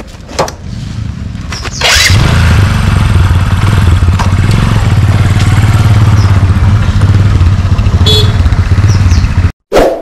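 Motorcycle engine running, moderately at first, then much louder and steady from about two seconds in as the rider opens the throttle and moves off. It cuts off abruptly near the end, followed by a short chime.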